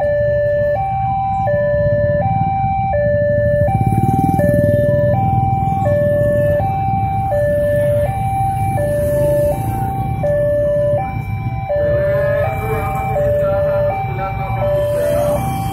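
Railway level-crossing warning alarm sounding: an electronic two-tone signal alternating between a lower and a higher tone about every three-quarters of a second, over steady low traffic noise.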